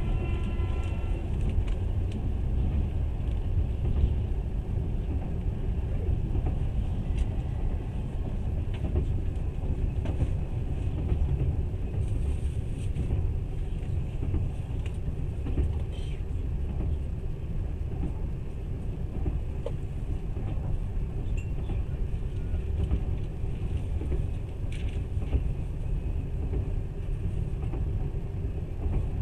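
Passenger train running at speed, heard from inside the carriage: a steady low rumble of wheels on rails.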